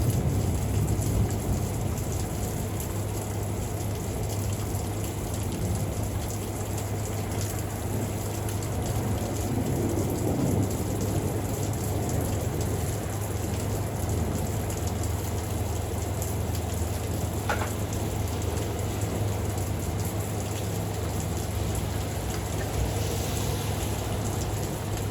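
Steady rain during a thunderstorm, with scattered drop ticks and a low rumble underneath; a thunder rumble is fading out at the start.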